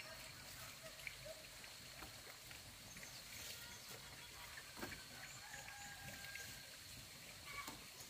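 Quiet outdoor ambience with a faint steady high tone, and a few soft knocks as cut sugarcane stalks are picked up and handled; the sharpest knock comes a little past halfway.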